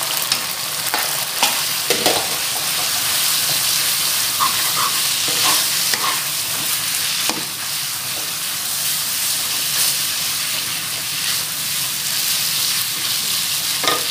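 Rice vermicelli stir-frying in sauce in a stone-coated wok: a steady sizzle while it is tossed and stirred with a wooden spatula, with scattered scrapes and knocks of the spatula against the pan.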